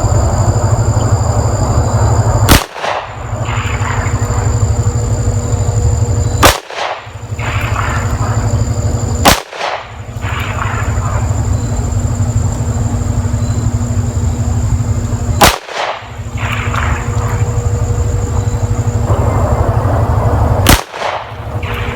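Five single pistol shots from a Smith & Wesson M&P in .40 S&W, fired slowly and unevenly spaced, two to six seconds apart, as a five-shot accuracy group. A steady low rumble runs under them.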